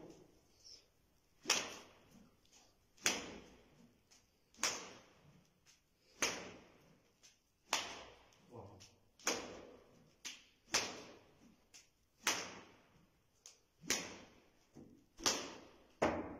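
Repeated whip lashes: a sharp crack about every one and a half seconds, some followed by a smaller crack, each with a short ringing tail.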